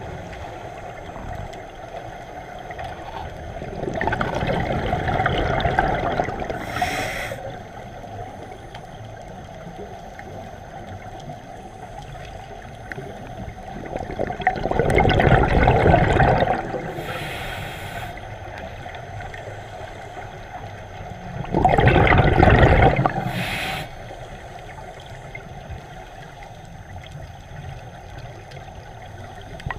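Scuba diver breathing through a regulator underwater: three rushes of exhaled bubbles, about seven seconds apart, each with a brief higher hiss from the regulator, over a steady low water hiss.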